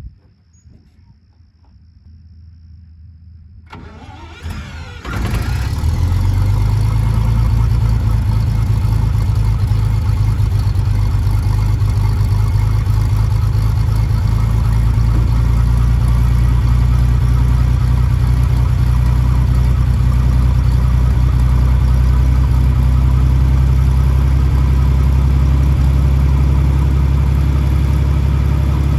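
John Deere 55 combine engine turned over by the starter for about a second, catching about five seconds in and then running steadily.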